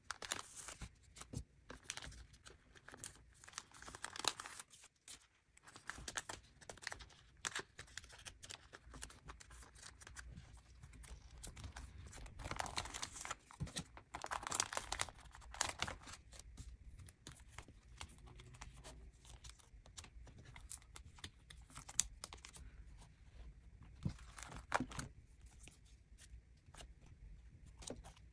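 Clear plastic card sleeves and binder pocket pages crinkling and rustling as photocards are slid in and out of the pockets, with small clicks and taps throughout. The crinkling is louder about four seconds in, through a longer stretch in the middle, and again near the end.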